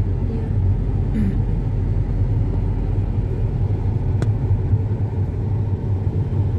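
Steady low rumble of a car's engine and tyres heard from inside the cabin while driving at road speed.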